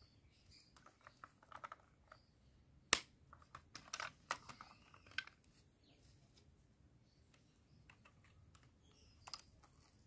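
Hard plastic parts of a toy Ultraman robot clicking and knocking as accessories are fitted onto it by hand. The clicks are scattered, with the sharpest one about three seconds in and a quick run of them just after.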